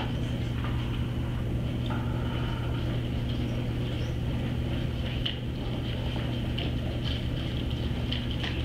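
Steady low room hum from equipment running in the room, with a faint steady higher hiss over it. A few faint short clicks in the second half, fitting keyboard typing.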